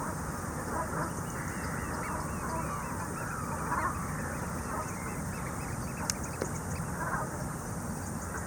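Flock of Brent geese calling with scattered honks. From about a second in until about halfway, an oystercatcher gives a quick run of high piping calls.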